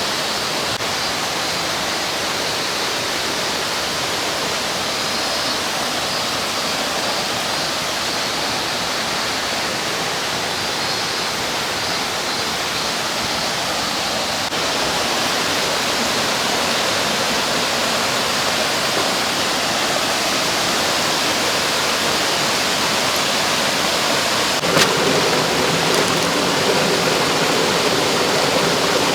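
Mountain stream rushing steadily over rocks. About 25 seconds in, it suddenly becomes fuller and a little louder.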